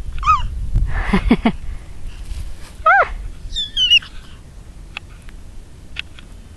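Puppies whining and yelping: a handful of short, high-pitched whines that rise and fall, the loudest about three seconds in, followed by a few faint clicks.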